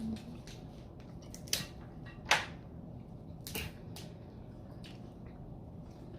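Eating at close range: a few sharp clicks and crunches of food being bitten and handled, the loudest about two and a half seconds in.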